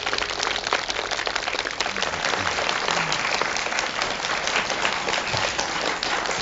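Studio audience applauding, a dense steady patter of many hands clapping.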